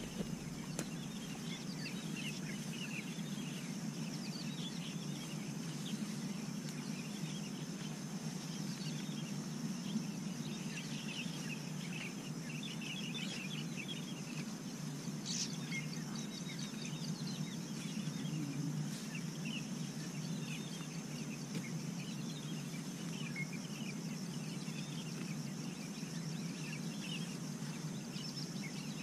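Birds chirping in many short scattered calls, over a steady high thin whine and a low steady rumble.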